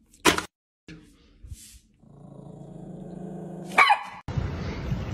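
Yorkshire terrier growling steadily for nearly two seconds, then giving one sharp bark: a small dog's warning. A loud sharp sound comes just before, about a third of a second in.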